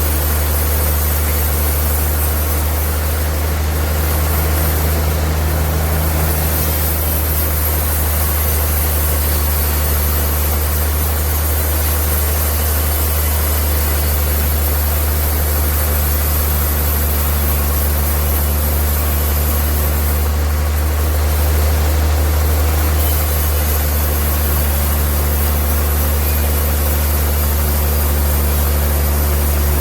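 Sawmill machinery running steadily, with a strong low hum under a constant high hiss; the hiss changes slightly twice.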